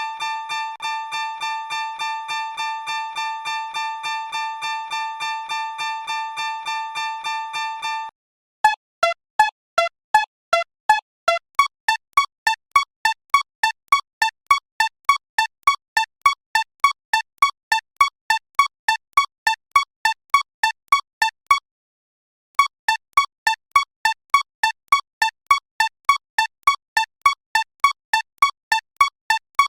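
Simulated railroad crossing warning bells. First a fast, pulsing ringing chime for about eight seconds, then a slower string of single electronic dings, about two to three a second. The dings start on a few different pitches, then settle on one repeated note, with a brief pause about two-thirds of the way in.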